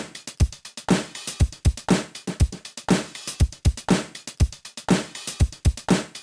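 Background music: a drum-machine beat with a steady kick and snare pattern.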